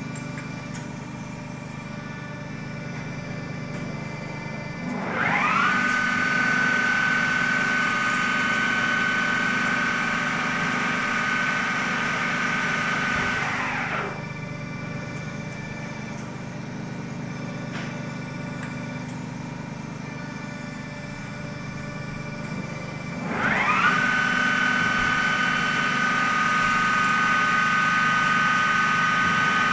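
Gildemeister N.E.F. 480 CNC lathe running over a steady low machine hum. Its spindle drive whine rises quickly about five seconds in and holds steady, falls away around fourteen seconds, then rises again near twenty-four seconds and holds as the chuck spins and cuts with coolant.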